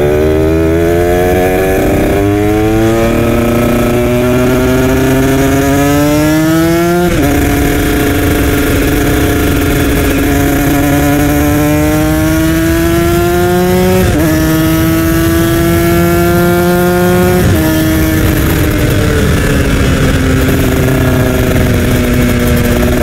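Kawasaki Ninja RR 150 two-stroke engine under hard acceleration, its note climbing through the gears and dropping at upshifts about 7, 14 and 17 seconds in, then easing off with the pitch falling slowly near the end. Steady wind rush from riding at speed runs beneath it.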